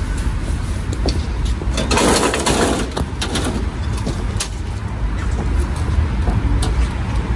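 Steady low wind rumble on the microphone, with scattered knocks and a louder scraping rustle about two seconds in as a metal road sign is lifted and carried.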